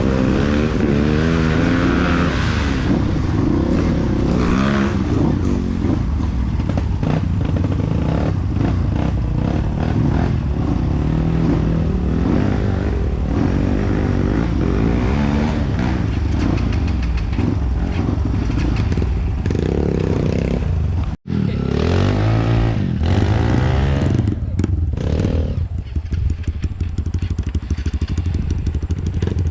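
Trail motorcycle engine running under load on a muddy off-road track, its pitch rising and falling repeatedly as the throttle is worked. The sound cuts out for an instant about two-thirds of the way through.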